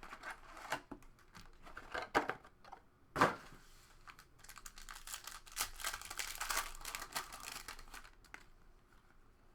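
Trading card pack wrappers crinkling and tearing open, with cards being handled, and a sharp crack about three seconds in.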